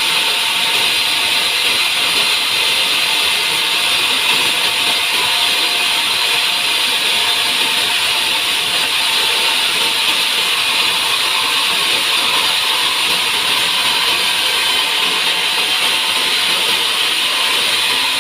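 Sawmill saw cutting steadily through a pine log, giving a loud, even, unbroken sound.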